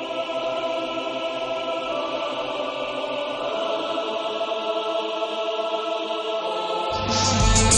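Background music: a sustained chord of several held notes, with a louder full-band track starting near the end.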